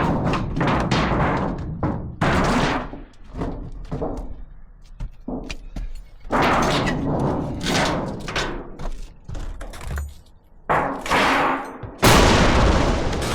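Strong gusts of wind buffeting the microphone, swelling and dying away again and again with a low rumble. Music comes in suddenly near the end.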